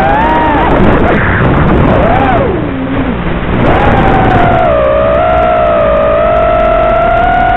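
Racing quadcopter's brushless motors whining, the pitch rising and falling with throttle. About two and a half seconds in the pitch drops low and the sound quietens briefly, as on a throttle cut. Then it climbs back to a steady whine.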